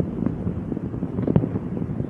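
Distant fireworks rumbling and popping as many short thuds, one stronger bang a little past the middle, mixed with wind buffeting the microphone.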